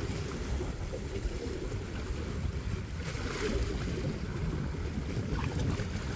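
Wind buffeting the microphone in a low, unsteady rumble over sea water washing against shoreline rocks, with a brief louder rush about three and a half seconds in.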